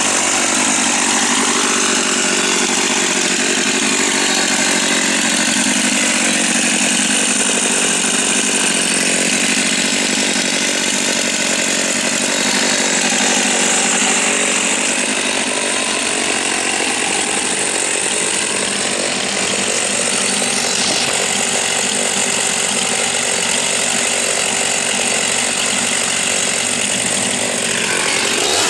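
Husqvarna 50 two-stroke chainsaw idling steadily, its pitch drifting slightly up and down.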